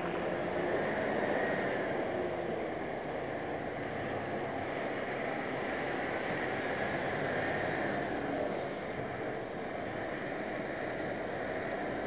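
Steady traffic noise heard while riding close behind a tour bus: engine hum with tyre and wind rush, even throughout.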